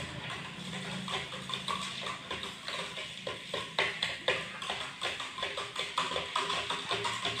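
Spoon clinking against the inside of a drinking glass while stirring, an uneven run of light clicks that is busiest about halfway through.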